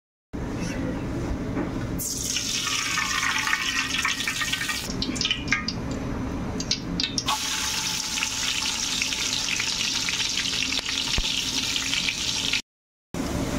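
Oil heating in a steel pot, hissing with scattered crackles; then, about seven seconds in, chopped onions go into the hot oil and sizzle steadily with many small crackles until the sound cuts off near the end.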